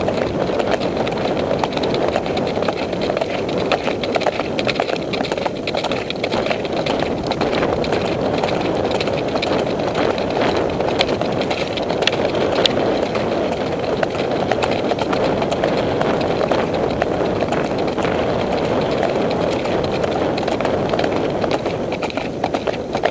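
Horses' hooves beating on a dirt track as several horses move along together, heard from the saddle over a steady rushing noise.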